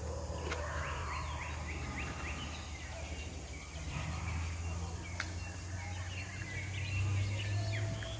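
Birds calling in runs of short, quickly repeated chirps, about a second in and again near the end, over a steady low rumble, with a sharp click about five seconds in.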